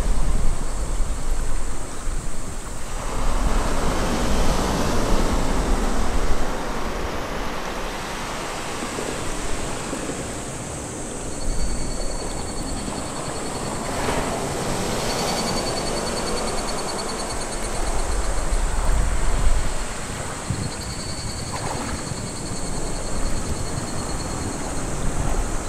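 Surf washing on the beach, with wind buffeting the microphone in gusts and a thin steady high tone above.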